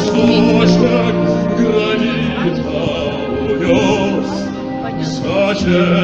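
Military band music with a singing voice, played over large stage loudspeakers.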